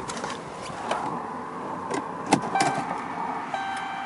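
Clicks and knocks of handling inside the pickup's cab, the sharpest about two and a half seconds in, then an electronic chime from the dashboard sounding a steady tone near the end as the ignition is switched on before the engine is started.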